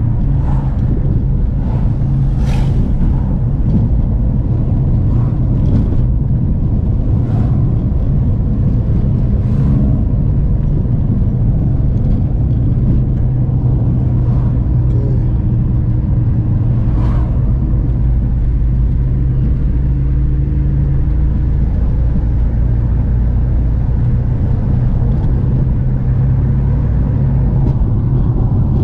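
A car driving along a road: a steady low rumble of engine and tyres, with scattered short knocks.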